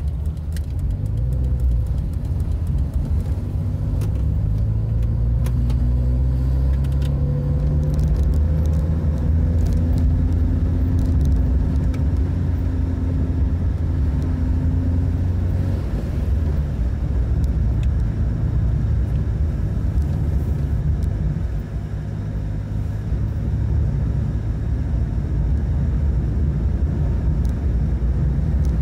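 A car's engine and road rumble heard from inside the cabin. The engine note rises slowly as the car accelerates, then settles into a steady drone, with a few light clicks near the start.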